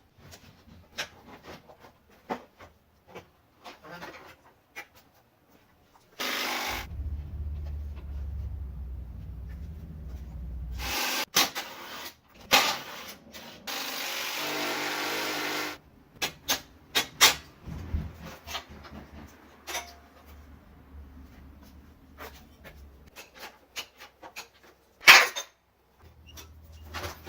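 Hand-tool work in a car's engine bay: scattered clicks, knocks and rubbing as plastic covers and brackets come off. A low steady hum runs for about four seconds near the middle, a brief rushing noise follows a little later, and a sharp knock near the end is the loudest sound.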